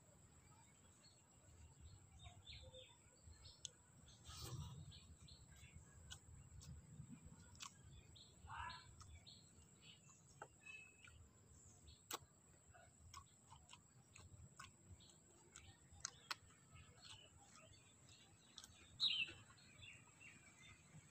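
Near silence: faint clicks and smacks of someone eating rice by hand, with a few short bird chirps, the clearest one near the end.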